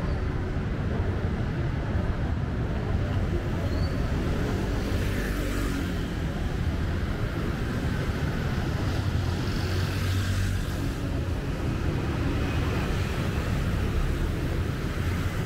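Street traffic: a steady low hum of passing vehicle engines, with no single event standing out.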